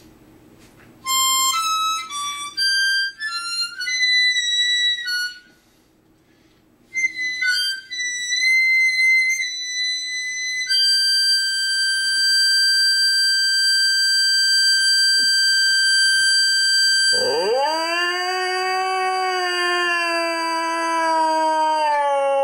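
Harmonica played haltingly in short single notes with a pause, then one long held note. About seventeen seconds in, an Australian Shepherd joins with a long howl that swoops up, holds, and slowly sinks under the harmonica.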